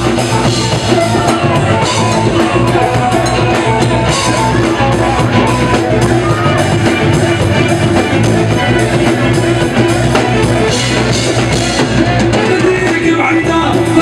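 Live band music played loud through a concert sound system, with keyboard and a strong bass line running without a break.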